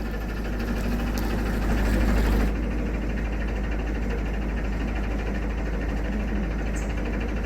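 Narrowboat diesel engine running steadily while cruising. It is a little louder for the first couple of seconds, then drops and settles.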